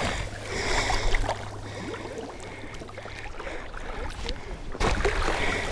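Pond water sloshing and splashing around a person wading through it, with a hand dipping into the water near the start.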